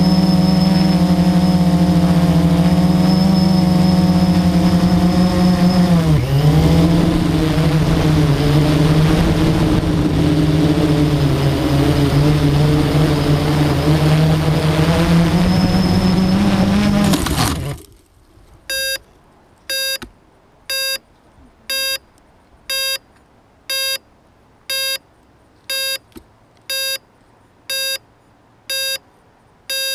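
Quadcopter's electric motors and propellers buzzing steadily from on board, the pitch dipping about six seconds in, as it descends in fail-safe return-home mode. A little over halfway through the motors cut out abruptly as it comes down into a pine tree, and the quadcopter then beeps in short beeps about once a second.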